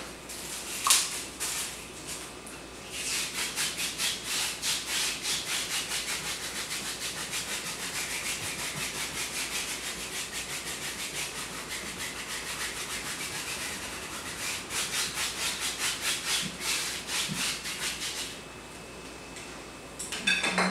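Paintbrush scrubbing acrylic paint onto canvas in quick back-and-forth strokes: a rhythmic scratchy rubbing, several strokes a second, starting about three seconds in and stopping near the end. A sharp tap about a second in.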